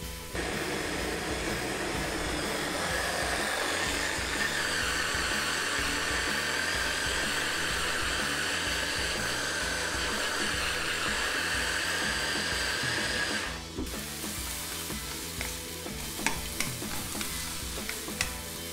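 Electric mini chopper (hand-blender chopper attachment) running steadily for about thirteen seconds while it purées the chickpeas into hummus, with a steady whine, then switching off suddenly. After that, red onion rings sizzle faintly in a frying pan, with a few clicks of a utensil.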